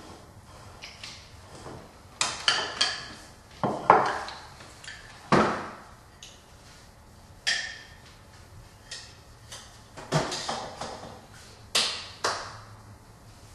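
Dishes being handled: a dozen or so irregular sharp clinks and knocks of crockery and cutlery, several ringing briefly, in bunches with short pauses between.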